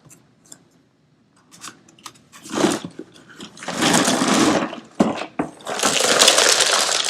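Many Tinker Toy pieces clattering as they are tipped out of their box. A few light clicks come first, then from about two and a half seconds in there are long, loud bursts of pieces tumbling and rattling together.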